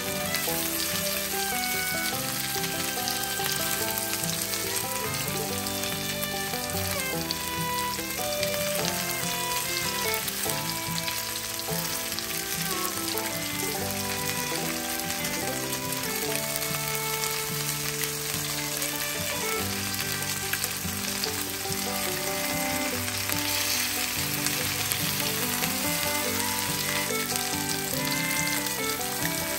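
Floured, egg-dipped fish pieces sizzling steadily as they fry in butter and olive oil in a pan, with a melody of background music over it.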